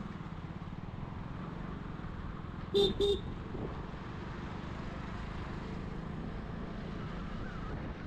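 Steady vehicle engine and road noise, with two short horn beeps in quick succession about three seconds in.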